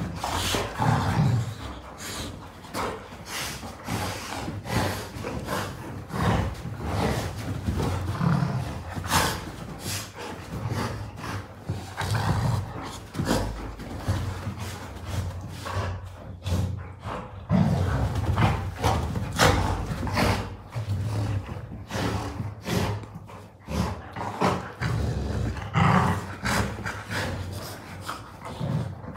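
A Labrador Retriever and a German Shepherd play-fighting over a pillow: repeated rough dog growls, mixed with scuffling and many short thumps of paws and bodies on a mattress.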